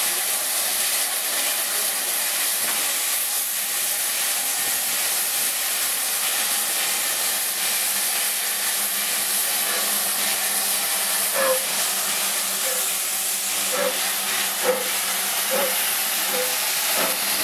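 Steady steam hiss from the standing LB&SCR A1X 'Terrier' tank locomotive 32662 'Martello'. About two thirds of the way in, a short regular beat at roughly one a second joins the hiss.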